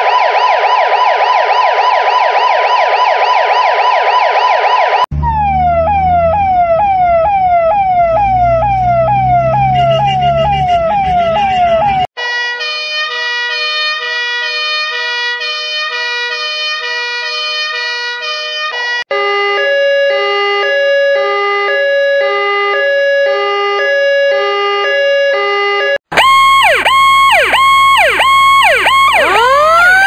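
A run of Japanese emergency-vehicle sirens, one after another. It opens with a fast-warbling police siren, and about 5 s in a siren of rapid repeated downward sweeps over a low engine rumble takes over. About 12 s in comes the ambulance's steady two-tone hi-lo siren, a second two-tone pattern follows at about 19 s, and from about 26 s a fire truck siren of repeated rising-and-falling tones plays, with a wail starting to climb near the end.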